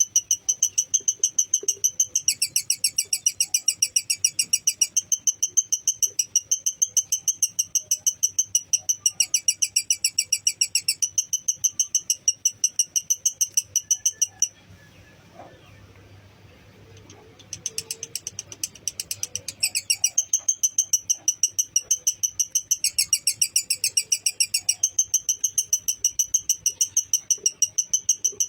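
Lovebird chattering its long 'ngekek' song: a fast, even run of shrill, repeated notes that breaks off for about three seconds midway and then resumes.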